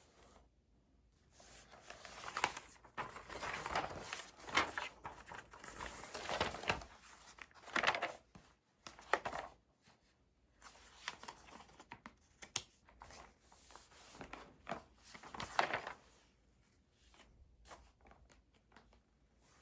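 Paper rustling and being handled at a desk in irregular bursts for about fifteen seconds, with a few light knocks, then quieter near the end.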